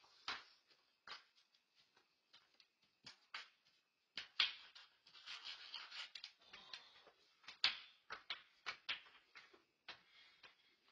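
Faint, irregular knocks and scuffs of footsteps and shuffling on a concrete porch, with a short run of faint hissy scuffling about halfway through.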